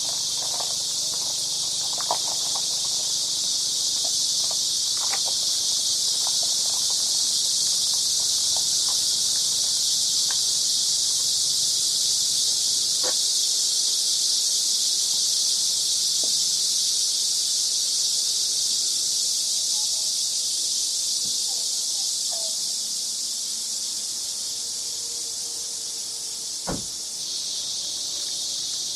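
A dense, steady chorus of insects: one continuous high-pitched buzz that does not pause. A few faint short chirps sound over it, and a single soft knock comes near the end.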